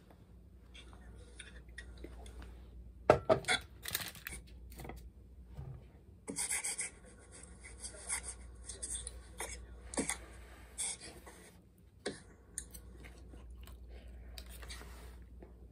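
Eating sounds: a metal fork clinking and scraping on a ceramic plate as hot potato is cut and taken up, several sharp clinks among them, with soft rustling and chewing in between.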